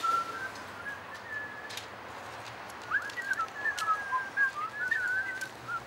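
A person whistling a tune: a few held notes stepping upward, then about three seconds in a quicker run of wavering, trilled notes.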